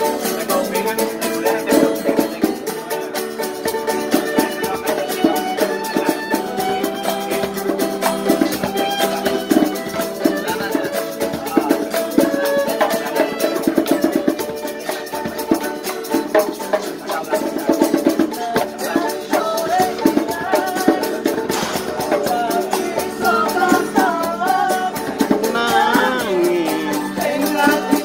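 Street musicians playing live music with a steady, dense percussion rhythm under sustained instrumental notes; a voice sings along near the end.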